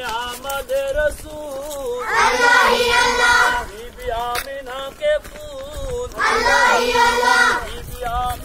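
Group of children chanting in call and response while walking in a procession: a single voice sings a melodic line, and many voices answer together in unison, twice.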